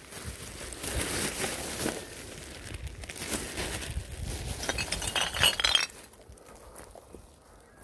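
Full green plastic rubbish bags rustling as they are grabbed and lifted, with clinking from the rubbish inside; the rustling stops about six seconds in.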